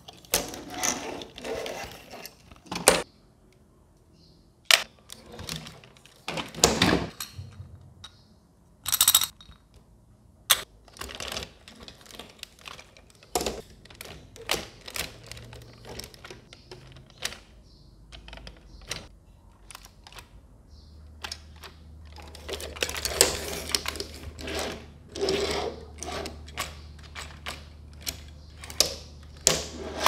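Hard plastic parts of a remote-control dinosaur toy clicking, tapping and rattling as they are handled and fitted together, in irregular bursts. A faint low hum comes in about two-thirds of the way through.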